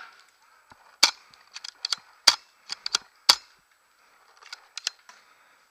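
Paintball markers firing: a string of sharp pops, the three loudest about a second apart, then a few fainter pops near the end.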